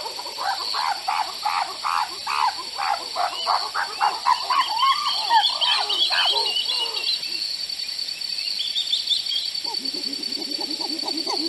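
A chorus of animal calls: many short rising-and-falling chirps, several a second, over a steady high whine. The chirps thin out about seven seconds in and come back lower in pitch near the end.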